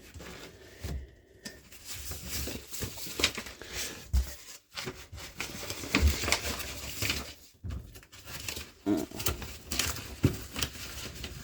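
Rummaging through bags and stored items: irregular rustling with light knocks and clatters as things are moved and handled.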